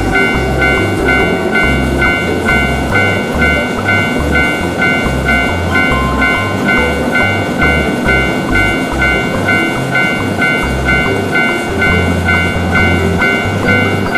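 Japanese railroad crossing warning bell ringing steadily, about two to three dings a second, over background music with a low rumble underneath.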